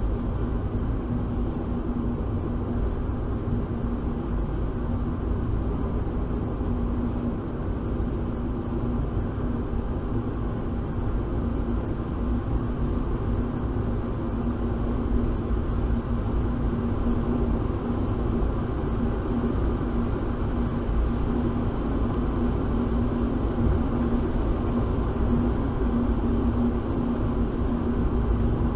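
Car cabin noise picked up by a windscreen dash cam while driving: steady engine and tyre drone with a constant low hum and no distinct events.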